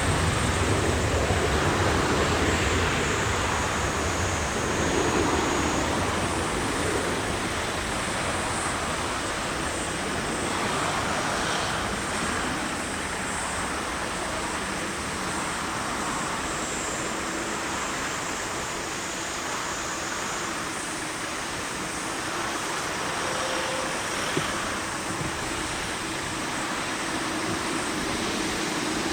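Boeing 747-8 freighter's four GEnx jet engines at takeoff thrust, a broad steady roar that slowly fades and loses its low rumble as the aircraft moves away.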